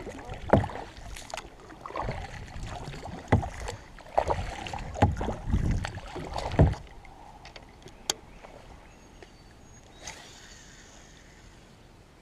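Knocks and bumps on a kayak hull, several in quick succession over the first seven seconds, then only a few faint ticks.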